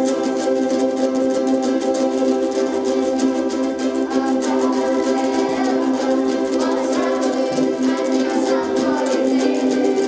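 A group of ukuleles strummed together by a children's ensemble, playing a steady, quick strumming rhythm on sustained chords.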